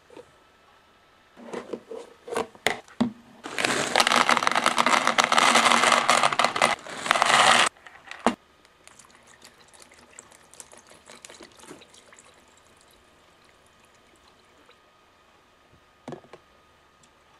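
Water pouring into a plastic microwave pasta cooking case for about four seconds, after a few clicks and knocks from handling the case. Near the end comes one more knock.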